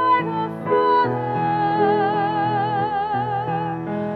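Soprano singing a long held note with wide vibrato over piano accompaniment. The note begins just under a second in and is held until near the end.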